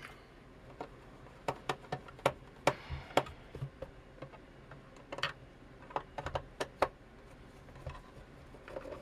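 Screws being undone from a soldering station's case with a screwdriver: scattered, irregular sharp clicks and small taps of the bit and screws, over a faint low buzz.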